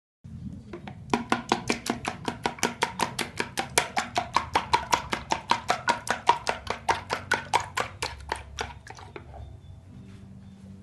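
A metal utensil beating eggs in a bowl, clicking against the bowl at a quick, even pace of about five strokes a second. The clicking stops near the end, leaving a low steady hum.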